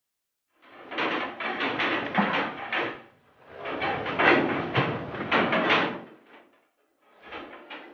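Rattling and scraping from Holstein-type dairy cows at a metal feed barrier pushing a plastic tub about the concrete feed alley, in two bursts of about two and a half seconds each, with many short clicks.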